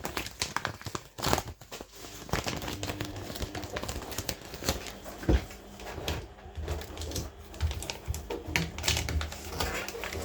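Irregular clicks and taps of small objects being handled, with some crinkling.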